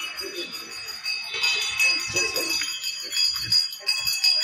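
Small bells jingling, with a steady high ringing held throughout.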